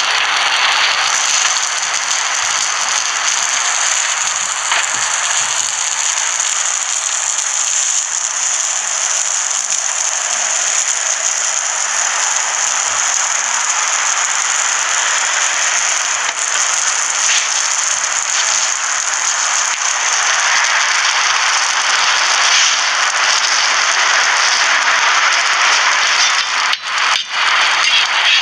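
Steady sizzle and crackle of bread slices toasting on a hot flat-top griddle.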